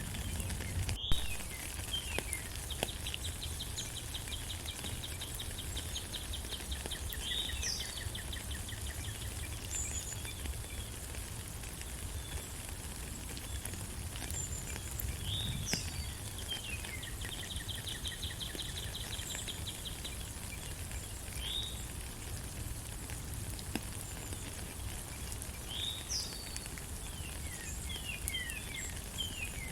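Steady rain under repeated bird calls: short chirps that slide downward in pitch, heard every few seconds. A fast rattling trill comes and goes, and there is a single sharp click about a second in.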